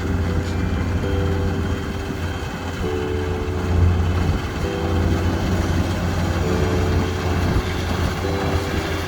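Rice combine harvester's engine running steadily with a low hum. A faint held tone sounds alongside it, alternating between two slightly different pitches every couple of seconds.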